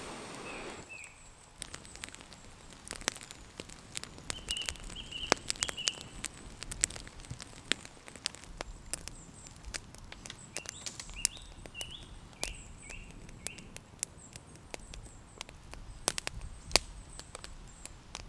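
In wet woodland, sharp irregular taps of water dripping onto leaves and ground, with a small bird chirping in short runs a few times. A soft hiss of rain is heard for about the first second.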